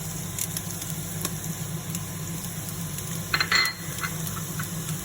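Garlic sizzling in hot olive oil in a pan, a steady hiss with small clicks of a utensil stirring it and a brief scrape about three and a half seconds in.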